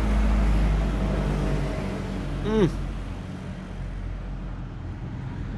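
Steady hum and low rumble of a nearby motor vehicle's engine, fading over the first few seconds. A brief voice sound comes about two and a half seconds in.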